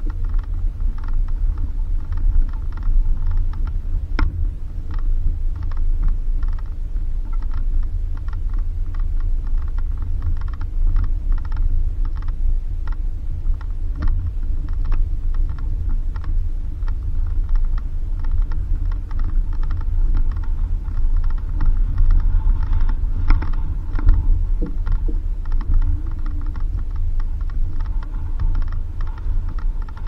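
Suzuki Jimny driving on a bumpy dirt road: a steady low rumble with rapid clicking and rattling as it jolts over the ruts.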